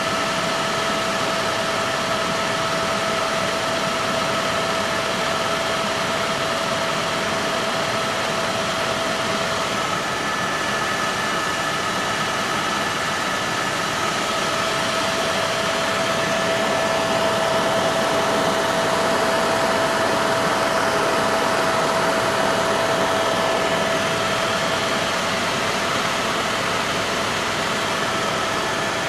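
Helicopter in flight heard from inside the cabin: a steady rushing drone with a few even whining tones running through it.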